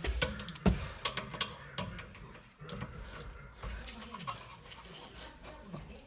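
Sharp clicks and knocks of metal brake parts and tools being handled, the loudest two within the first second, then scattered lighter taps, over a faint low wavering hum.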